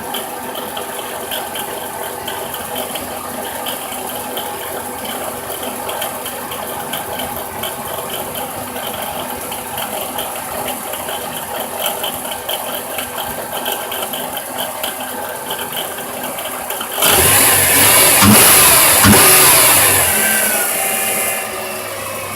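Idling 3.8 L V6 of a 2006 Dodge Grand Caravan with a worn alternator bearing: a steady whir and rattle over the engine. About two thirds of the way through the engine is revved for a few seconds, the noise growing louder, then falls back to idle.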